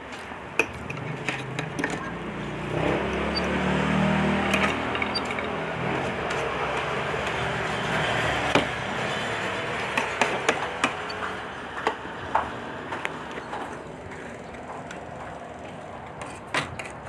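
Scattered clinks and taps of a metal spoon, fork and glass bottle against a plate and tabletop, over steady room noise. A low rumble swells about three seconds in and fades a few seconds later.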